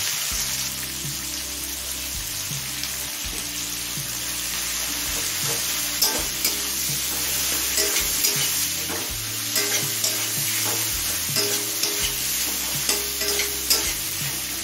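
Sliced onions sizzling in hot oil in a kadai, with a spatula scraping and tossing them against the pan. The scrapes grow frequent from about a third of the way in.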